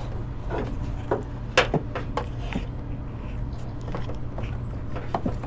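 Scattered light clicks and knocks of a screwdriver and loosened parts as screws are taken out of the air box and hose fittings, the sharpest a little after a second and a half in, over a steady low hum.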